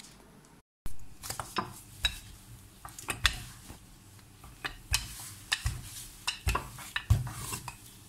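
Wooden rolling pin knocking and rolling on a granite countertop as dough is rolled out: irregular clacks and dull thuds, beginning about a second in.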